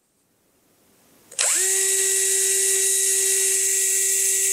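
Small Bosch handheld electric drill, set to its faster speed, switched on about a second and a half in. It quickly winds up to a steady high whine and holds at full speed.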